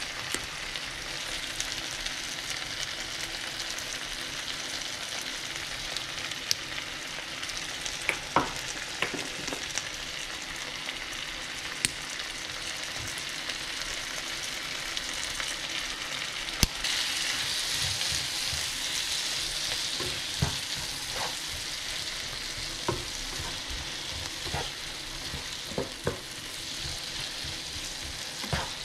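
Diced tomatoes and onions sizzling in a frying pan on the hob, with a spatula clicking and scraping against the pan as they are stirred. A little over halfway through a sharp click comes and the sizzle grows louder for a few seconds.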